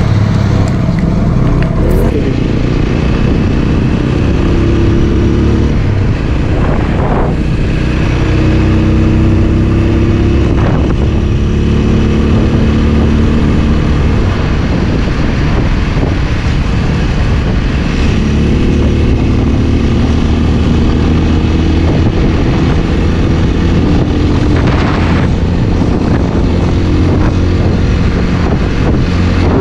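Motorcycle engine running under way, its pitch rising and falling with the throttle, over steady wind and road noise.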